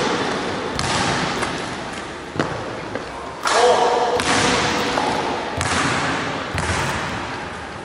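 Basketballs thudding on a hardwood gym floor and hitting the hoop during a run of three-point shots, about six sharp knocks, each ringing on in the big hall's echo.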